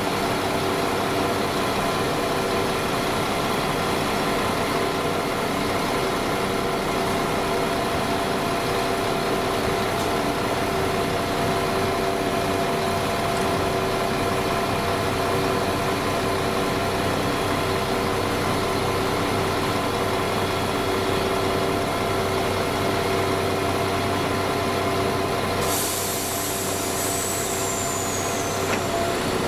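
Class 172 diesel multiple unit idling at a platform, its underfloor diesel engines giving a steady hum with several held tones. A high air hiss starts suddenly near the end.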